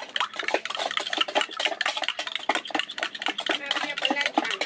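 Metal spoon stirring a liquid in a glass measuring jug, clinking rapidly and repeatedly against the glass.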